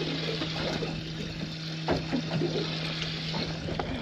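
Water sloshing against a boat's hull over a steady low hum, with a few light knocks, the sharpest about two seconds in.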